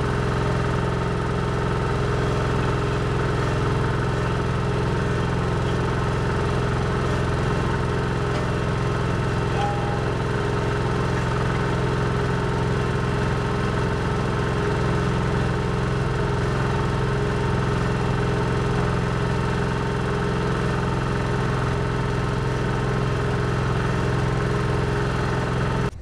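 Engine of road-paving machinery running steadily at a constant speed, an even mechanical drone that cuts off suddenly at the end.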